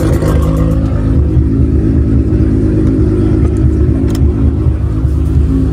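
A car engine running at a steady speed, its low even note holding without rising or falling, with one brief click about four seconds in.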